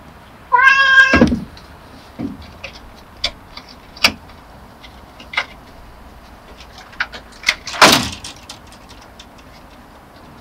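Domestic cat giving one short, high meow-like cry near the start, followed by scattered light clicks and taps and one brief loud rustling burst about eight seconds in.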